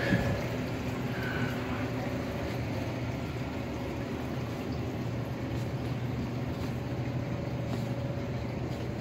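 Steady low machine hum of indoor appliances, with a faint steady higher tone over it; a brief knock just after the start.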